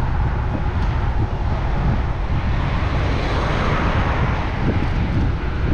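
Wind buffeting the microphone outdoors, a rumbling rush with a broader swell of noise in the middle.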